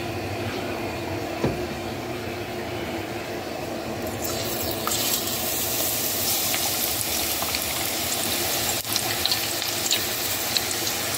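Hot oil in an enamelled cast-iron pot sizzling as salt-cod fritter (zeppole di baccalà) batter is spooned into it; the sizzle grows louder and brighter about four seconds in, with scattered small pops and crackles.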